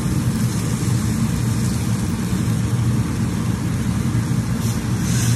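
Rump steak frying in butter in a nonstick pan, sizzling steadily over a constant low hum, the sizzle briefly louder near the end.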